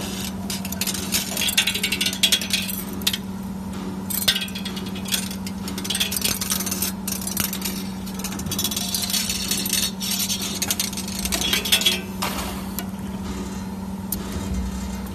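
CNC 3D wire bending machine forming a wire car seat spring: a steady hum under repeated irregular clicks, metal clinks and short hissing bursts as the bending head works the wire.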